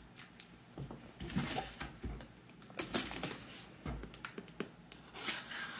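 Cardboard mailer being handled and opened by hand: scattered light taps, clicks and scrapes of cardboard.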